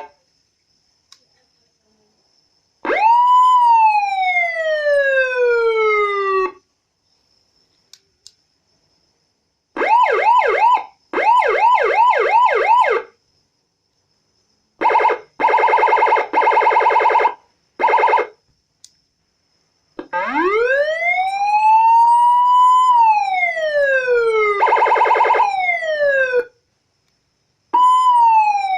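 SPC12T twelve-tone electronic police siren running through its different tones with short pauses between: a single rise-and-fall wail, a run of quick yelping sweeps, a fast pulsing warble in four short bursts, and a long slow wail with a rapid pulsing tone over its fall. A new falling sweep starts suddenly near the end.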